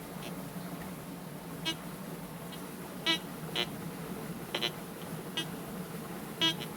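TX-850 metal detector giving short, irregular beeps, about six of them, as it is swept over stones, over a steady low hum.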